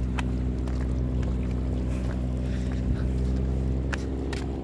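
Steady low drone of a boat's engines, a stack of even tones held without change, with a few sharp clicks over it.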